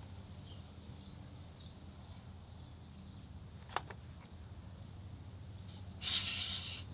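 Air escaping from a car tire's valve in a short, loud hiss of just under a second near the end, as a portable inflator's hose chuck is screwed onto the valve stem. A single sharp click comes a little before the middle.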